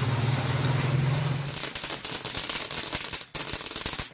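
Mini ground fountain firework spraying sparks: a steady low hum and rush at first, then dense, rapid crackling from about a second and a half in.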